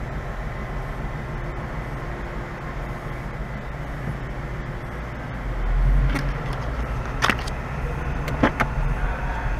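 2015 Ford Mustang's V8 exhaust rumbling steadily at low speed in a parking garage, heard from inside the car. The rumble swells briefly about six seconds in as the throttle opens, and a few short sharp knocks follow near the end.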